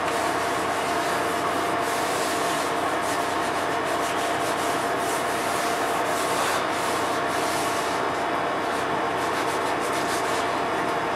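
Gloved hand rubbing boiled linseed oil along a wooden axe handle, a faint, uneven scuffing of glove on wood. Under it runs a steady hum with a constant tone, the running of a window-style air conditioner.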